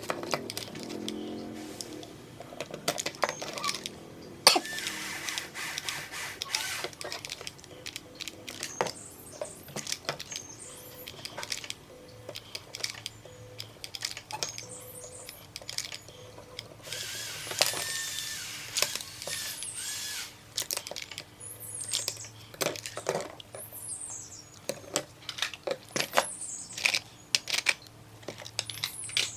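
Hand-work sounds: small parts and tools clicking and knocking many times, with two hissing stretches of a few seconds each and some brief high squeaks near the end.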